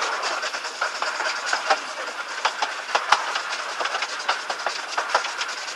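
Miniature railway train rolling along the track, carriage wheels giving a steady rolling rumble with frequent irregular clicks and clatters.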